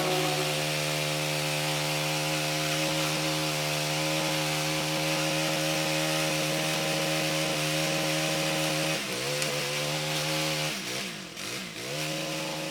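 Two-stroke chainsaw running at high revs while cutting through wood, its pitch steady. About nine seconds in it drops, then near the end it falls and climbs again as the throttle is eased and reapplied.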